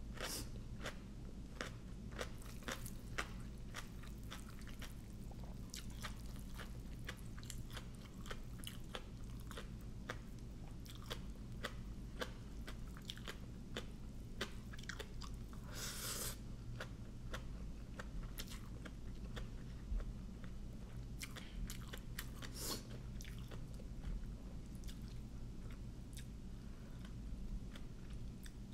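Close-up chewing and crunching of papaya salad with fresh shrimp and raw vegetables: a steady run of small wet mouth clicks and crunches, with a couple of louder, longer crunches partway through.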